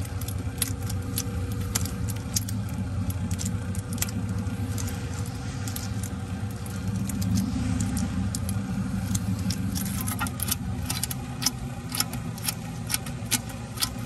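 Hands working epoxy putty onto the plastic pump housing: scattered sharp clicks and taps over a low steady rumble, the clicks coming faster over the last few seconds.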